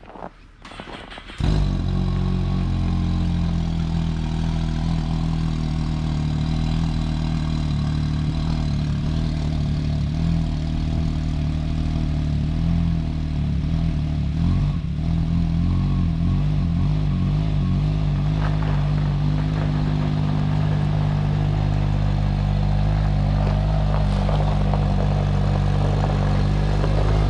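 A vehicle engine running steadily, coming in suddenly about a second and a half in.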